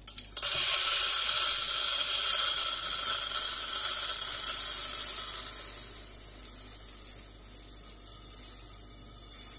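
Whole roasted coffee beans poured from a metal jug into a grinder's clear bean hopper: a dense rattling stream of beans that starts about half a second in, is loudest in the first couple of seconds, then thins out gradually as the hopper fills.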